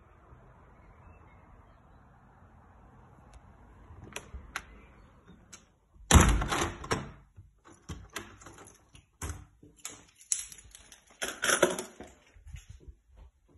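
A patio door with keys in its lock being shut and locked: a loud thud as it closes about six seconds in, then a run of clicks, clunks and jingling keys from the lock and handle.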